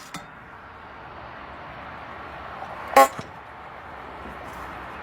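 A single short, loud horn toot about three seconds in, over steady background noise.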